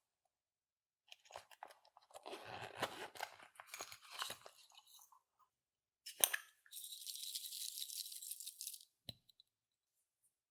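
Clear slime being squished and worked by hand, crackling and popping irregularly for several seconds. About six seconds in there is a sharp sound, followed by about two seconds of steady high hiss and a single click near the end.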